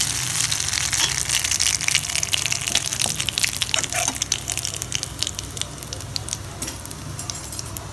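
Carom seeds (ajwain) sizzling and crackling in hot mustard oil in an iron kadhai, a dense spatter of small pops over a frying hiss that thins a little near the end: seeds being tempered in the oil.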